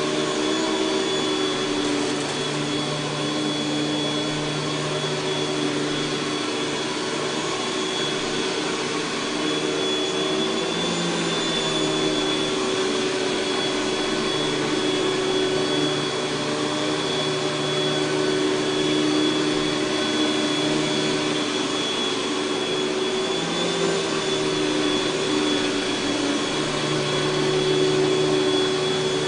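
Panasonic Jet-Flo MC-6210 upright vacuum cleaner running continuously, its motor giving a steady high whine, with the lower hum shifting slightly in pitch now and then.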